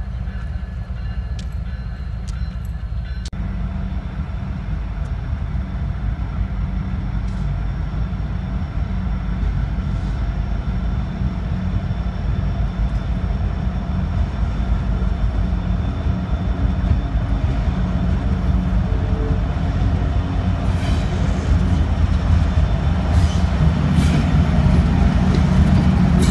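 Diesel locomotives of a heavy freight train running, a steady low rumble that slowly grows louder as the train comes closer. Sharp wheel-on-rail clicks join in during the last few seconds.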